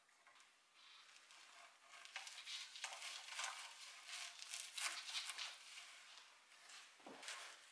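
Faint rustling and scratching of a bundle of long tail hair being twisted and pushed into the tail hole of a wooden rocking horse, with a soft bump near the end.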